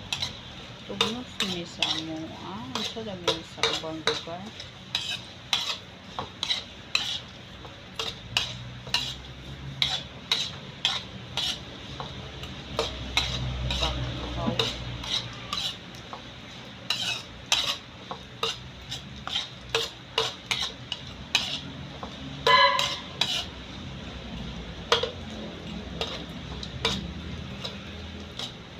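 Metal ladle scraping and knocking against a wok while stir-frying small dried fish, over a light sizzle. Many sharp irregular strikes, a few a second, with the loudest about three-quarters of the way through.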